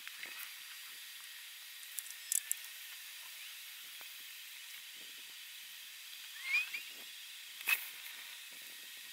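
Quiet outdoor work sounds: a steady high hiss with a few light clicks and taps from handling materials at the camper wall, including a sharper click near the end. There is a brief squeak a little past six seconds in.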